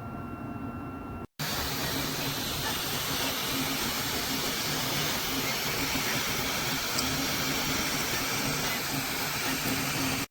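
Flashforge Adventurer 5M 3D printer running with its cooling fans at high speed: a loud, steady whooshing hiss over a low, pulsing hum. About a second in, a quieter hum with a steady whine cuts out briefly before the loud fan noise begins.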